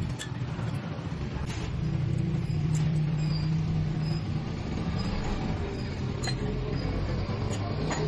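Metal lathe running with a steady low hum, with scattered light metallic clicks over it.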